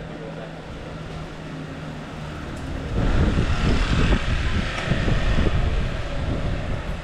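Street ambience in which a passing vehicle grows loud about three seconds in, a low rumble with a hiss above it that eases off near the end.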